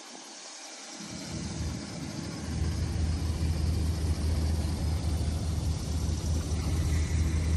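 Low, steady rumble of an idling vehicle engine that comes in about a second in and grows louder, over a steady high hiss of outdoor background noise.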